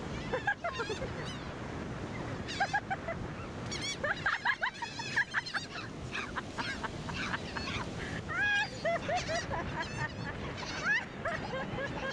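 A flock of gulls calling constantly, many short overlapping squawks and yelps at once, over a steady rushing background noise.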